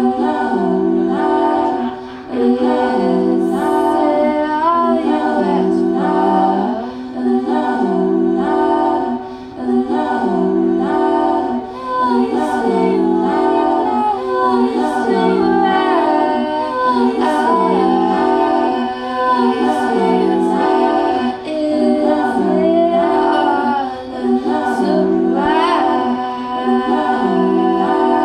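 A woman singing live into a microphone over a repeating loop of layered, choir-like voices that cycles about every two seconds.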